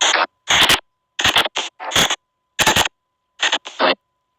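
Spirit-box app (SP White Noise Box) playing chopped white noise: short separate bursts of noise, about two a second with silent gaps between them, over a faint steady tone.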